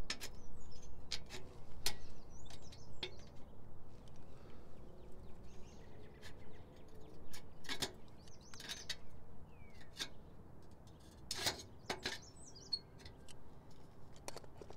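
Tin snips cutting sheet-metal flashing: sharp, separate snip clicks that come in small clusters, with a pause in the middle. Birds chirp in the background.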